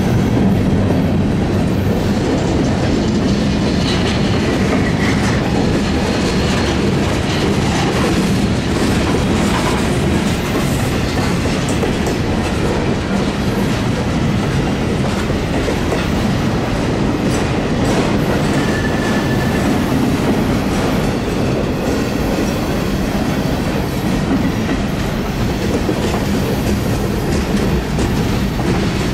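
Freight cars of a mixed freight train rolling past at close range. The steel wheels rumble steadily on the rails, with a clickety-clack as they cross rail joints.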